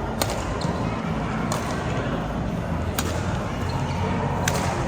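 Badminton rally: rackets striking the shuttlecock four times, about a second and a half apart, over a steady background din.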